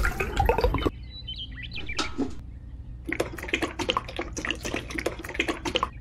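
Watery grey cement mix pouring from a miniature tin-can mixer drum into a small metal bucket for about the first second, then poured from the bucket into a sand trench, splashing and trickling from about halfway in to near the end.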